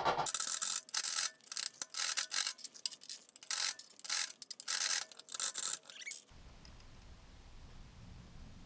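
A rapid, irregular series of short, hissy scraping strokes from hand work. About six seconds in it cuts off abruptly to quiet room tone with a low hum.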